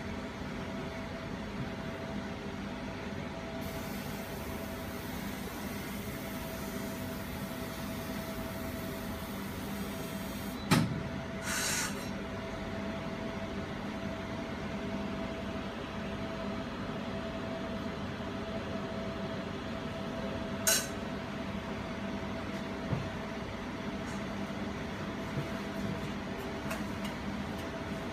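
Jewelry laser welding machine humming steadily while its power supply starts up, with a sharp click about ten seconds in, a brief hiss just after it, and another sharp click about twenty seconds in.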